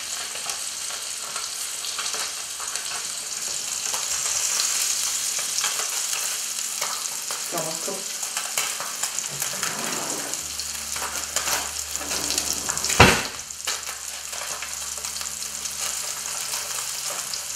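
Sea bass fillet frying in hot fat in a frying pan, a steady sizzling hiss. A single sharp knock about two-thirds of the way through.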